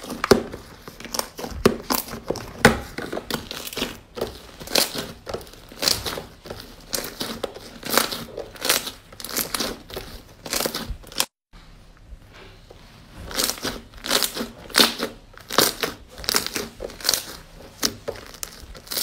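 Slime being squeezed and pressed by hand, giving a dense run of crackling, popping clicks. The clicking breaks off for a moment about eleven seconds in, then resumes.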